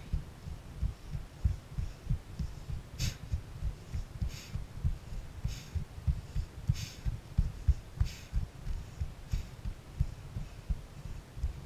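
Hiker's footsteps climbing a rocky dirt trail, picked up by a body-worn camera: a soft crunch about every second and a quarter over continual low thudding and rumble from body movement and wind on the microphone.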